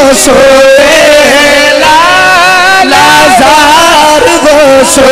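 A man singing a naat, an Urdu devotional poem, into a microphone in long, wavering held notes.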